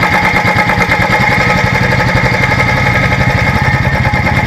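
Royal Enfield Electra's single-cylinder engine running at low road speed, a loud, steady, even beat.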